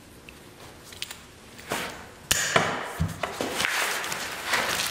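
Locking pliers (vise grips) snap shut on a fabric strap with one sharp click about halfway through, followed by rustling and light knocks as the fabric skin and strap are pulled and handled.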